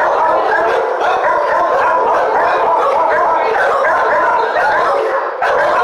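Many shelter dogs barking at once in the kennel rows, an unbroken din of overlapping barks with a brief lull about five seconds in.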